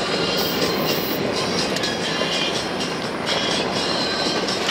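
A 4x4 vehicle driving fast on a loose gravel track: steady tyre noise on the gravel, with stones and grit rattling and clicking against the body.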